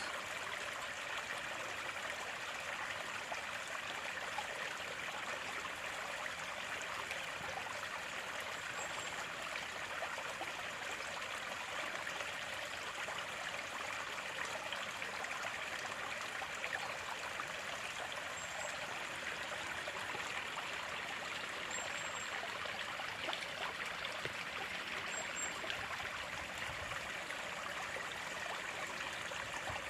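Running water flowing steadily, an even rushing and trickling.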